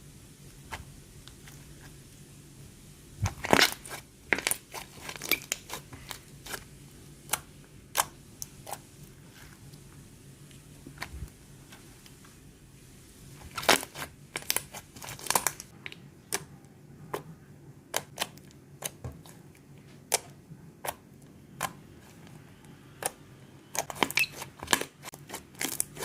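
Slime being pressed and squeezed by hand, giving irregular sharp pops and crackles, in thicker clusters a few seconds in, around the middle and near the end.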